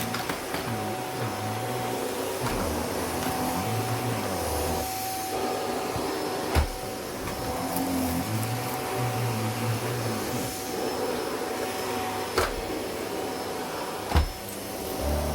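Vacuum cleaner running steadily, its low drone shifting in pitch, with a few sharp knocks, two of them near the end.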